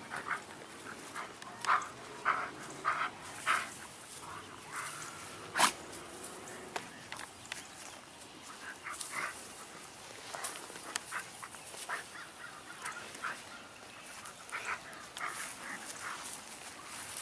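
Large dog making a series of short vocal sounds, about half a second apart in clusters, as it rolls on its back in grass, with one sharper, louder sound about six seconds in.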